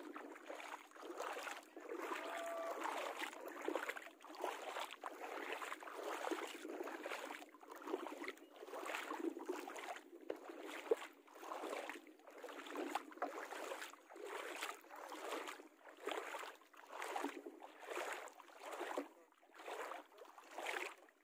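Small waves lapping at the shoreline, the wash of water swelling and fading a little more than once a second.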